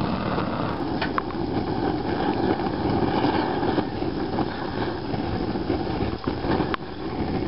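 Wood fire burning in a steel bucket around a paint-can charcoal crucible: a steady rushing of flames with a few sharp crackles, about a second in and again near the end. The burning wood gas, the oils driven out of the wood through the crucible's vent holes, marks the charring stage of charcoal making.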